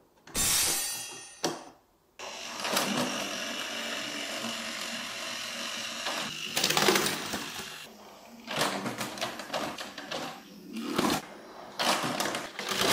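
Battery-powered Plarail toy train running along plastic track, its small motor whirring steadily, then clicking and rattling unevenly over the track pieces in the second half. A brief hissing burst comes near the start.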